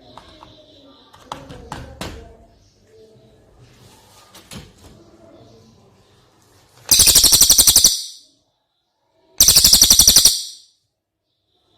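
Brown cililin bird giving two loud, fast rattling trills, each about a second long, the first about seven seconds in and the second about two seconds later.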